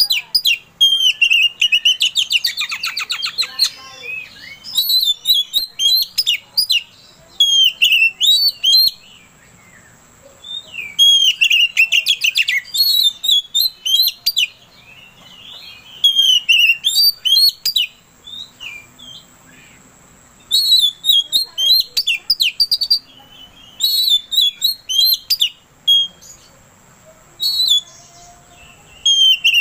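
An Oriental magpie-robin (kacer) singing loud bouts of quick, varied whistled phrases with short pauses between them. A fast, dense trill comes about two seconds in.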